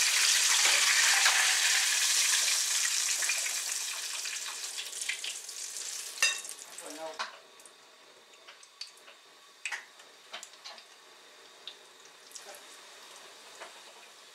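Ricotta hand pies deep-frying in a pot of hot fat: a loud sizzle that gradually dies down over about seven seconds. Then light clinks of a metal spoon against the pot, with one sharp clink about six seconds in.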